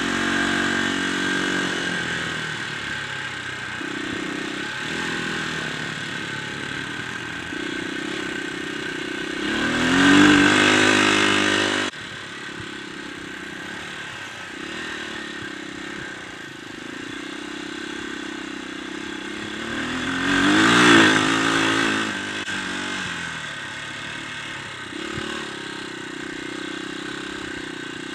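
Dirt bike engine heard from on the bike while riding, its revs rising and falling with the throttle. It twice revs up loud with a sweep in pitch, about ten and about twenty seconds in. The sound drops suddenly about twelve seconds in.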